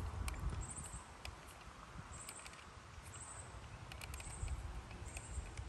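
Faint clicks and handling noise as crimped spade connectors are pushed onto the terminals of a trolling motor's control-head switch. Low wind rumble and a faint high chirp repeating about once a second run behind them.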